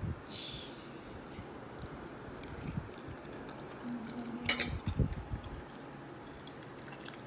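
Quiet table sounds while eating: a brief hiss near the start, then a sharp clink of a metal fork against a ceramic plate about four and a half seconds in.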